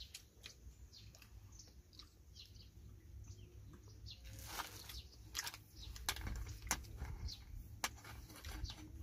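Faint bird chirps, with a few sharp clicks and rustles from about halfway as food is handled among plastic bags and metal dishes.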